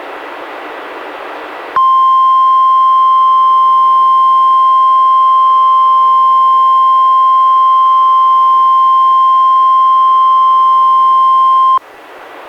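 NOAA Weather Radio warning alarm: a single steady tone of about 1050 Hz lasting about ten seconds, sent as the receiver test in a required weekly test. It starts sharply about two seconds in after a stretch of radio hiss and cuts off sharply near the end.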